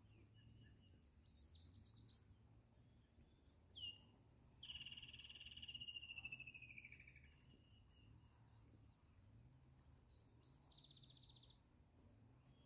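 Faint bird calls: short high trills about a second in and again near the end, and in the middle a long call that falls slowly in pitch, over a low steady hum.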